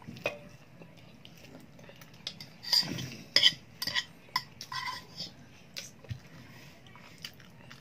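Metal fork clicking and scraping against a plastic bowl as instant noodles are scooped up: a scatter of short knocks, busiest around the middle.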